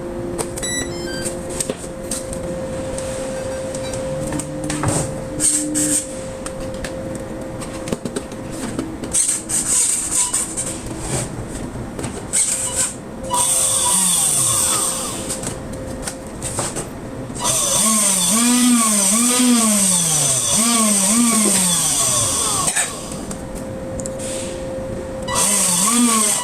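775 brushed DC motor of a homemade RC speed boat, run through its ESC by remote throttle. It hums steadily at first, then from about halfway through it is revved up and down again and again, its whine rising and falling in pitch.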